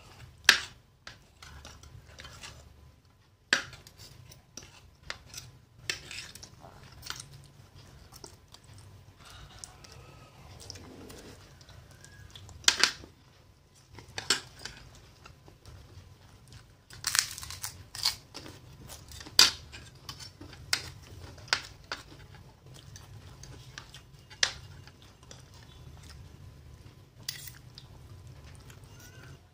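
Metal spoons and forks clinking and scraping on a plate in sharp, irregular clicks, with quieter chewing of fried instant noodles in between.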